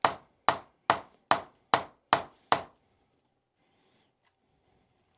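Seven hard hammer blows in quick, even succession, about two and a half a second, knocking at a shaft adapter stuck fast in a TaylorMade driver head to drive it out. The blows stop about two and a half seconds in.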